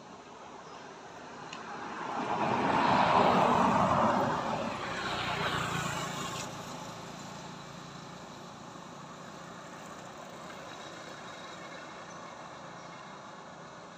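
A road vehicle drives past. Its noise swells over about two seconds, peaks, and dies away, with a second, smaller swell just after.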